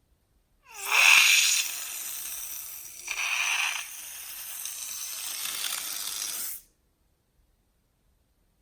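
Air rushing out of a balloon's neck: a short rising squeal, then a hiss that swells again about three seconds in and cuts off suddenly after some six seconds.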